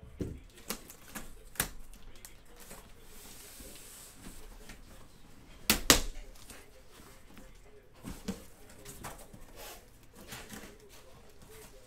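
Cardboard shipping case being handled and shifted on a table: scattered knocks and light scrapes, with a soft rubbing hiss and then two sharp knocks close together about six seconds in.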